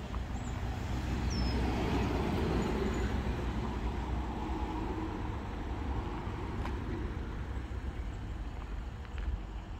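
Road traffic passing the crossing: tyre and engine noise swells to a peak about two to three seconds in, then fades, over a steady low rumble. A couple of faint short bird chirps come near the start.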